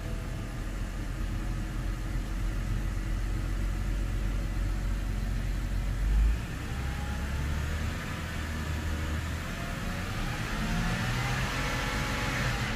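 BMW N52 2.5-litre inline-six idling, heard from inside the cabin, with a brief surge about six seconds in, then revved up with a steadily rising engine note toward about 3000 RPM. The engine has logged misfires on cylinders 1 and 5, but at this speed it does not feel like it is misfiring.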